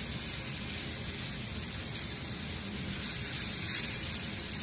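Chicken pieces sizzling steadily in a hot frying pan as they are sautéed and stirred.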